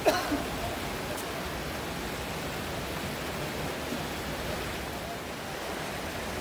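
Steady, even background hiss, with a short falling chirp right at the start.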